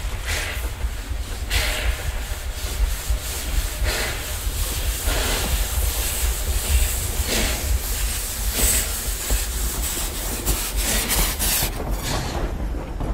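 Steam locomotive's exhaust chuffing slowly, each chuff a hissing burst a second or more apart, over a steady low rumble as it approaches. Near the end the locomotive has gone past and the chuffs give way to the rumble of passing coaches.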